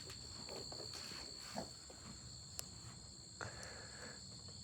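Faint, steady, high-pitched insect trill, with a few soft scattered footsteps and rustles.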